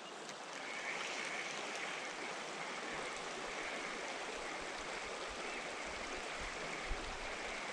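Steady, fairly faint rush of flowing river water.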